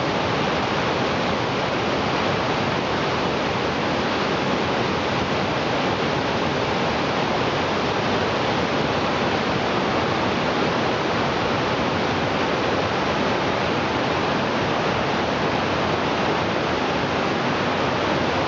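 Mountain creek rushing over boulders in small whitewater cascades: a steady, even wash of water noise that does not change.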